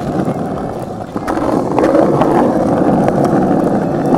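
Skateboard wheels rolling on pavement, with bearings freshly cleaned and lubricated: a steady rolling rumble that gets louder a little over a second in, with a few sharp clicks.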